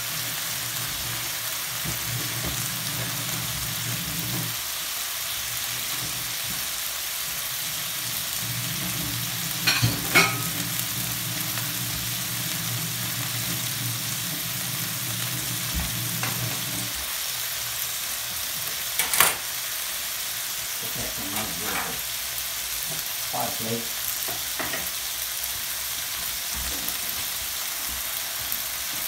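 Cod fillets, cherry tomatoes and olives sizzling steadily in olive oil in a frying pan. A few sharp knocks come about ten and nineteen seconds in, with smaller ones later. A low hum underneath stops a little past halfway.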